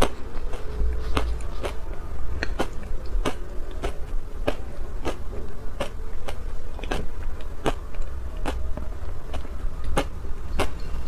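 Close-miked chewing of crunchy refrozen shaved ice coated in matcha powder: a steady run of sharp crunches, about one and a half a second.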